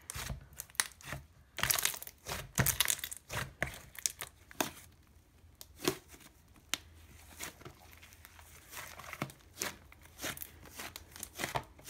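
Jelly slime being squished, folded and stretched by hand, making irregular sticky crackles and clicks.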